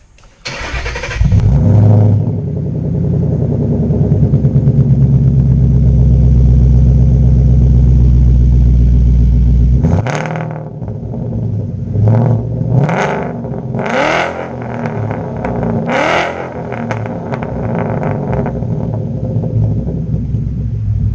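Ford Mustang GT's 5.0 L Coyote V8 through a straight-piped exhaust (cat delete, X-pipe, muffler delete with resonated tips), starting up warm about half a second in and running loud and steady. It drops back around ten seconds in, is revved four quick times, then settles to idle. Super loud: the meter reads about 128 dB.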